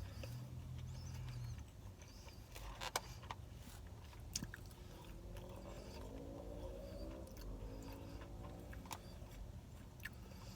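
Close-miked chewing of crispy battered fried chicken, with a few sharp crunches. A faint tonal drone can be heard in the middle.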